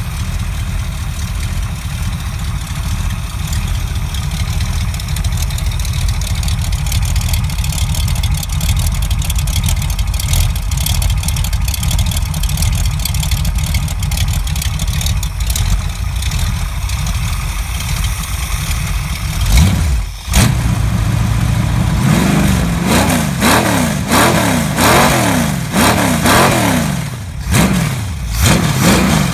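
Freshly rebuilt Chevrolet 350 small-block V8, bored .030 over to 355 and on a run stand with short exhaust pipes, running steadily at idle on a test run. About two-thirds in, after a brief dip, the throttle is blipped repeatedly and the engine revs up and down several times.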